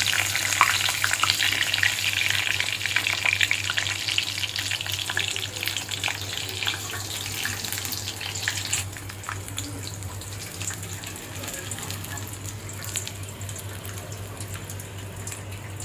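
Breadcrumb-coated chicken cutlets deep-frying in hot oil in an iron kadai: a steady sizzle full of small crackles and pops. The sizzle drops to a quieter level about nine seconds in.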